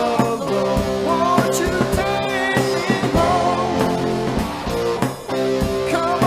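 Rock band instrumental: lead guitar playing bending notes over rhythm guitar, bass and a drum kit keeping a steady beat.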